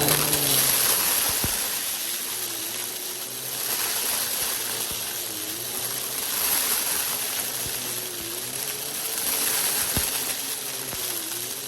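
Upright vacuum cleaner with its brushroll spinning, sucking up dry rice, macaroni and beans, the grains rattling and clattering up through the machine. The motor's hum dips in pitch and recovers every few seconds as the vacuum is pushed back and forth.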